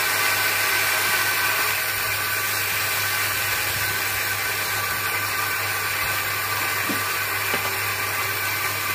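Bench grinder motor running steadily with an even hum, while a small synthetic cat's-eye stone is held against its polishing wheel.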